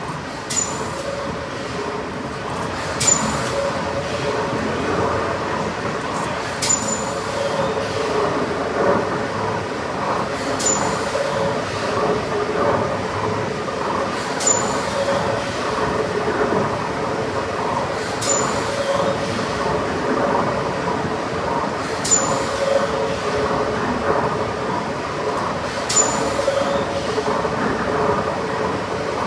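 Large triple-expansion steam pumping engine running slowly, heard from beneath it: a steady mechanical hum and clatter, with a sharp click about every four seconds.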